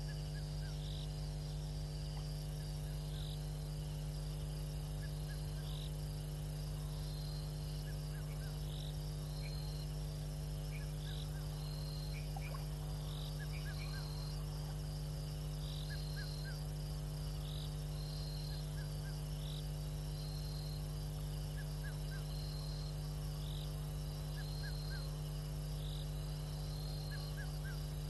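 Steady low electrical hum under a night chorus of insects, with a short high chirp repeating about once a second and scattered faint calls.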